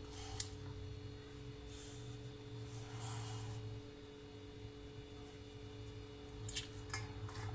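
A kitchen knife snicking through okra and carrot pieces held over a stainless steel bowl: a sharp click about half a second in and a few more near the end, over a steady low hum.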